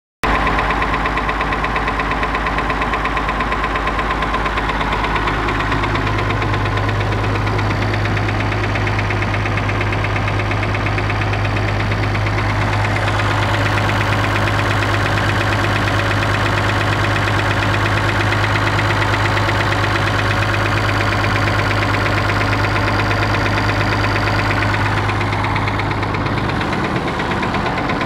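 Perkins T6.354 M six-cylinder turbocharged marine diesel engine running steadily with an engine knock.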